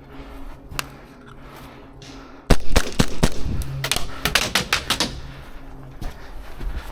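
Airsoft guns firing: about two and a half seconds in, a sudden rapid, irregular string of sharp cracks and clacks starts and runs for roughly three seconds before thinning out. Before it there is only a faint low hum and a single click.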